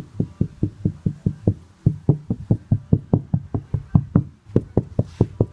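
Rapid knuckle knocking on a panel of a prefabricated subwoofer box, about seven knocks a second, to let its sound be heard. The builder doubts the panel is even MDF.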